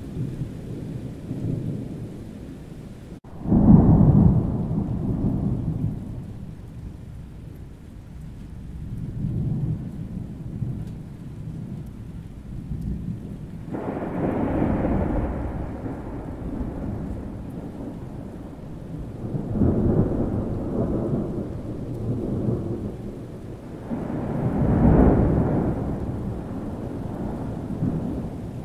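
Thunderstorm: rolling thunder over steady rain. The loudest peal breaks suddenly about three and a half seconds in, right after a brief dropout, and several more deep rolls swell and fade through the rest.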